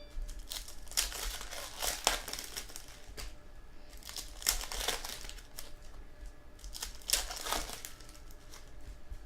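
Trading card pack wrappers being torn open and crinkled by hand, in a series of irregular crackling rustles.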